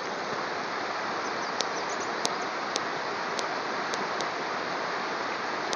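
Rushing mountain stream, a steady wash of whitewater tumbling over rocks, with a few faint sharp ticks through the middle.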